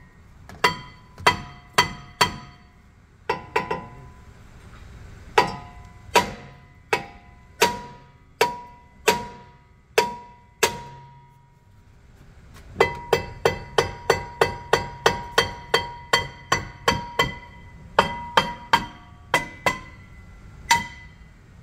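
Hammer blows on a Subaru Outback rear brake rotor to knock it loose from the hub, each strike ringing with a clear metallic pitch. The blows come about one a second, stop briefly just past the middle, then come in a quick run of about three a second.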